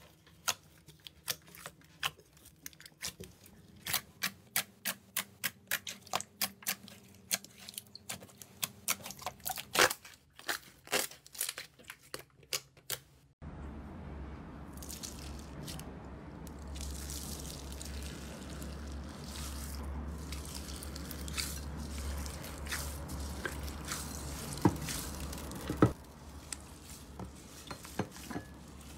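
Slime being handled at close range. First come crisp clicks and crunches, about three a second. About thirteen seconds in they give way to a steady wet squishing and crackling over a low hum, with two sharp pops near the end.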